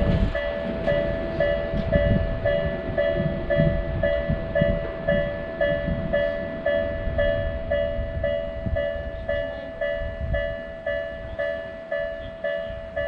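Japanese railroad crossing warning bell ringing, an electronic two-tone ding repeating about twice a second. Under it a train rumbles and clatters past, fading out near the end.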